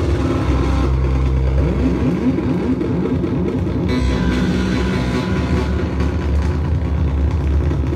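Small Arduino-based BitBeatBot synthesizer board playing a low, dense electronic drone. A fast run of repeating rising pitch sweeps comes in the middle, and the tone shifts as its knobs are turned.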